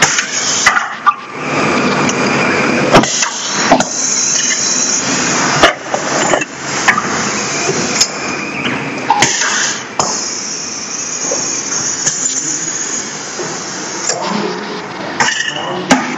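Lusso LRT 65x65 automatic screen printing machine running its print cycle: a steady mechanical whirr with sharp clicks and knocks every second or two, and a bright hiss about ten seconds in.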